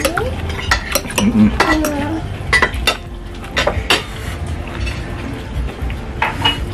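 Metal fork and spoon clinking and scraping against a glass bowl while noodles are stirred and lifted, a string of short, sharp clinks at uneven intervals.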